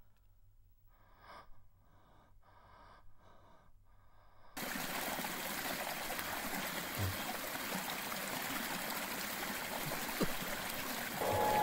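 A man's faint gasping breaths. Then, about four and a half seconds in, a steady rush of water running from a bathtub tap starts abruptly.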